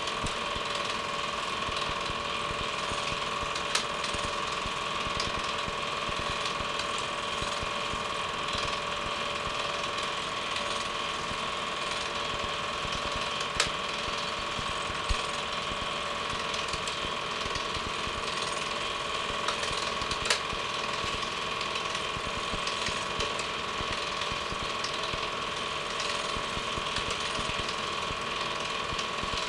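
Home-movie film projector running: a steady, rapid mechanical clatter over a constant hum, with a few sharp clicks.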